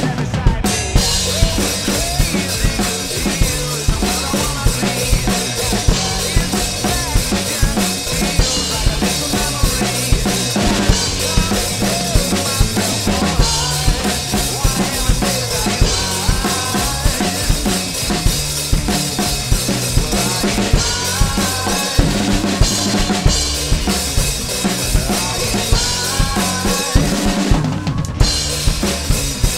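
Acoustic drum kit with Meinl cymbals played to a steady rock beat of bass drum, snare and cymbals, along with a recorded rock song's band track.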